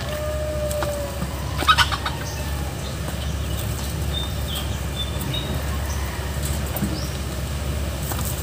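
A chicken's wings flapping in one short burst about two seconds in, over a steady low rumble, with a few faint high bird chirps near the middle.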